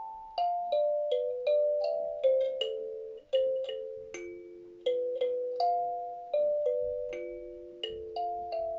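Kalimba (thumb piano) played by hand in an unhurried melody, about two plucked notes a second, each note ringing on and overlapping the next.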